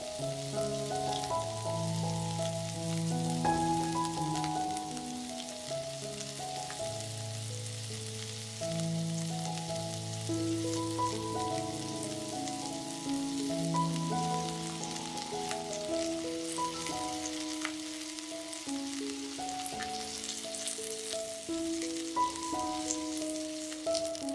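Chicken seekh kebabs sizzling on a ridged cast-iron grill pan: a steady hiss with scattered small pops. Slow background music of long held notes plays over it.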